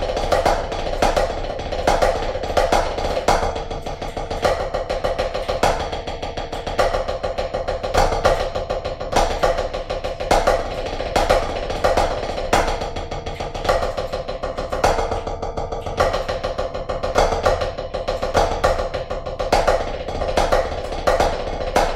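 Drumsticks playing a fast rudimental snare solo on a practice pad, with dense rolls and sharp accented strokes about twice a second.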